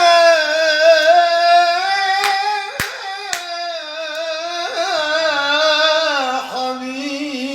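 A singer holding one long, wavering sung note on the vowel of 'ya', in Aleppine tarab style, the pitch dipping lower near the end. Three short sharp clicks or claps sound around the middle of the note.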